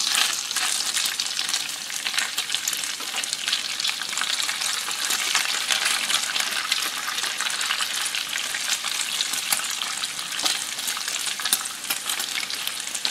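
Bacon frying in a shallow pool of its own rendered grease on an electric griddle plate: a steady sizzle with many small crackles and pops all through.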